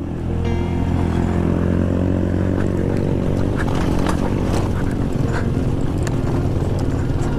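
A Suzuki GS 150 SE's single-cylinder four-stroke engine runs under steady throttle, heard from on the bike. Its note rises slightly in the first second, then holds. Several short knocks come through as the bike rides over rough dirt track.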